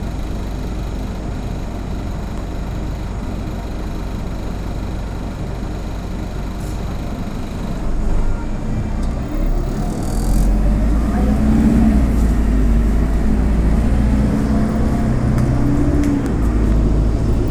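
Autosan Sancity M09LE city bus heard from on board: the diesel engine runs steadily at low revs, then about eight seconds in it gets louder and its note climbs and falls as the bus pulls away and accelerates. There is a brief hiss about ten seconds in.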